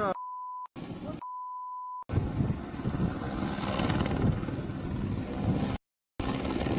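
Two steady censor bleeps, with snatches of a shouting voice between them, in the first two seconds. Then a loud rushing noise with a heavy low rumble from a helicopter crashing on a slope, cut by a brief dropout near the end.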